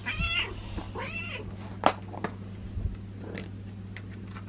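Black-and-white domestic cat meowing twice, two short meows that rise and fall in pitch within the first second and a half, followed by a few sharp clicks, the loudest about two seconds in.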